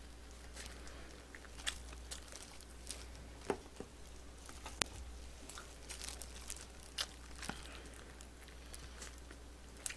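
Close-up chewing and biting of bone-in sweet crispy fried chicken (dakgangjeong): quiet crunching with scattered sharp clicks and crinkles.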